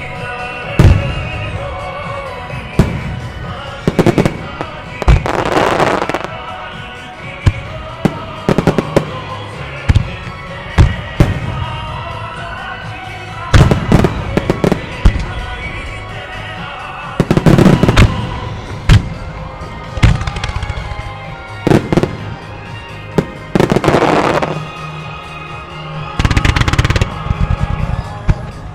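Aerial firework shells bursting in a rapid starmine sequence, with many sharp booms and several longer stretches of crackling, over a song playing through loudspeakers.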